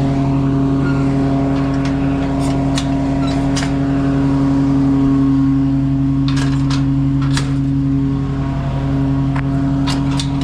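Steady engine hum running at an even speed, with scattered sharp clicks and knocks over it.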